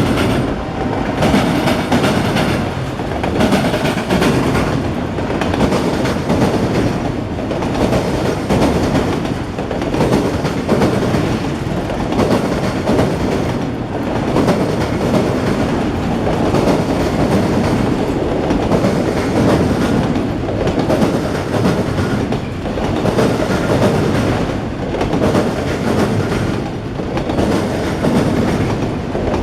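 Autorack freight train rolling past: a loud, steady rumble of steel wheels on the rails, with a regular clatter about every two seconds.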